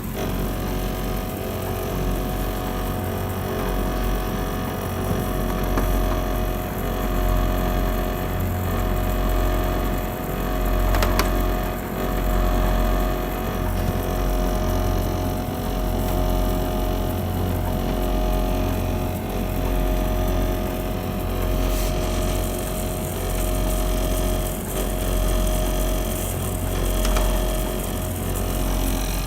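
Panasonic CS-225CF room air conditioner running in heating mode with a loud, deep 'boon, boon, boon' drone that swells and fades every couple of seconds over a steady hum. The owner calls it an abnormal noise, though a Panasonic service technician judged it normal.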